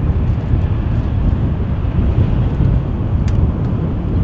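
Airbus A319 airliner's twin jet engines giving a loud, steady rumble, heaviest in the low end, as the jet rolls along the runway.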